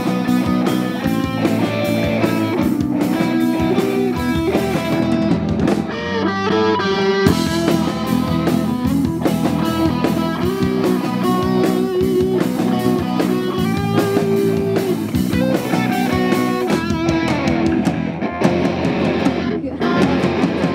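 Punk-rock band playing live: electric guitars over drums, with a steady beat.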